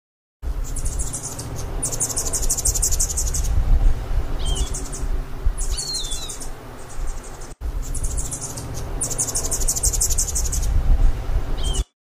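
Hummingbird at a flower, giving a few short high chirps over a steady low hum, with insects trilling in repeated pulsing bursts behind it. The sound drops out for an instant about two-thirds of the way through.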